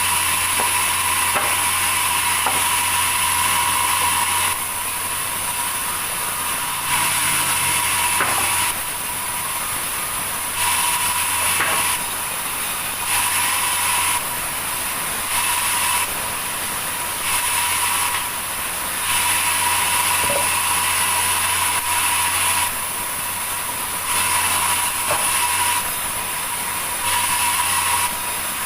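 Sawmill saw running, with a steady hum and whine, while it cuts wood; louder stretches of a few seconds switch abruptly with quieter ones.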